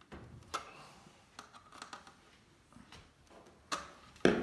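Faint, scattered clicks and scrapes of pliers on the metal rail connector tabs of a plastic Carrera slot-car track joint, with a louder click near the end. The tabs are being bent slightly to tighten a poor rail connection that makes the car lose power at that joint.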